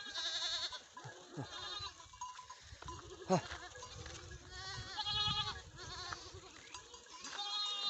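A herd of goats and young kids bleating, about four quavering bleats coming in overlapping groups, with one sharp falling call about a third of the way in.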